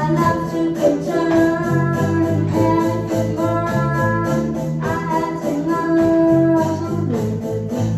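A live band playing a song: a boy sings into a microphone over electric bass guitar, electric keyboards and a drum kit keeping a steady beat.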